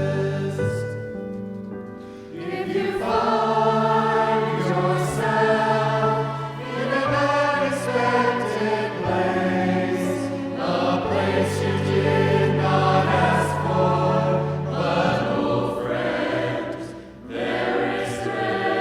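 Christian worship song: voices singing over an instrumental accompaniment with held bass notes. The music dips briefly between phrases about two seconds in and again near the end.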